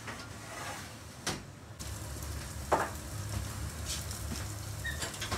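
Built-in kitchen fish grill handled: two sharp metal knocks from the grill drawer and rack, the louder one about halfway through, over a steady sizzling hiss of yellowtail collars grilling.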